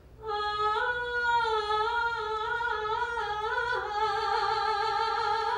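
A woman's solo singing voice holding one long note of a show tune, moving up and down a little in pitch, with no piano heard under it.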